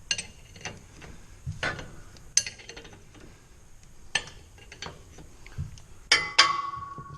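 Metal objects clinking and knocking together, about eight separate strikes, the loudest pair near the end followed by a short metallic ring.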